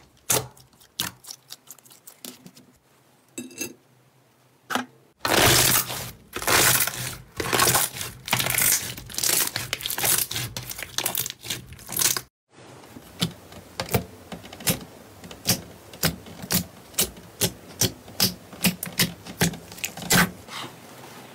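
Hands squishing and pressing glossy slime, making sticky clicks and pops. About five seconds in, dense, loud crackling begins as a dark blue slime is pulled apart, and it stops abruptly a few seconds before the midpoint. Then comes an even run of wet pops, about two or three a second, as a soft pink and yellow slime is pressed in its tub.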